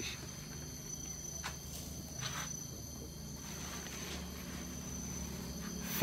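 Insects calling steadily as one thin, high-pitched tone, with a few faint clicks.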